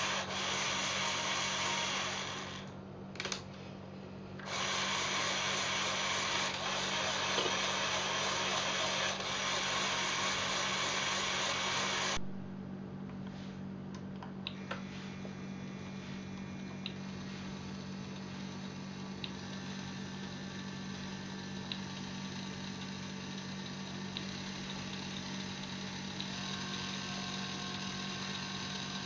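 Small electric motors and plastic gearing of a Lego Technic remote-control truck whirring. The sound is loud at first with a brief dip about three seconds in, then drops to a quieter whine about twelve seconds in.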